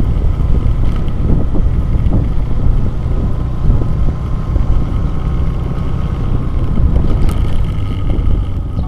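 Heavy wind buffeting on an action camera's microphone while moving along a road, with a vehicle's engine running underneath.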